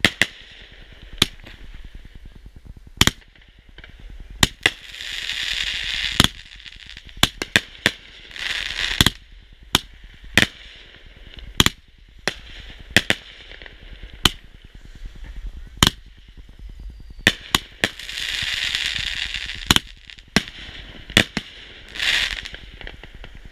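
Consumer aerial fireworks going off: an irregular series of sharp bangs, about one a second and sometimes two or three in quick succession, as shells launch and burst. Several stretches of a second or two of crackling fill the gaps, the last near the end.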